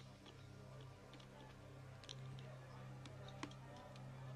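Faint, scattered sharp clicks over a low, steady hum.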